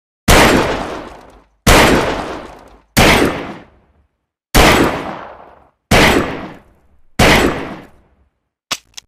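Cheap 'Saturday night special' revolver firing six shots about a second and a half apart, each bang trailing off in an echoing tail, the cylinder emptied. A couple of small clicks follow near the end.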